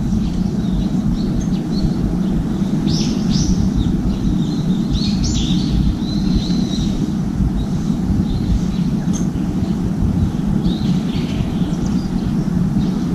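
Short, high bird calls in a few clusters, about three seconds in, around five to seven seconds and again near eleven seconds, over a steady low rumble of outdoor background noise.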